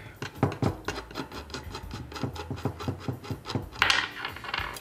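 Small steel lock nut and bearing being worked off the threaded end of a CNC ball screw by hand, making a quick, irregular run of little metallic clicks and scrapes, with a short louder scrape about four seconds in.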